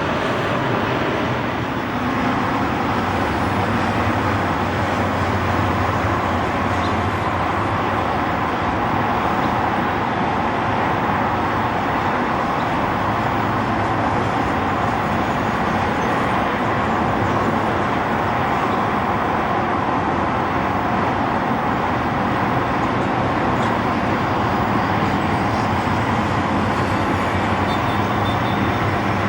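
Boeing 747 freighter's four jet engines running with a steady, loud rush.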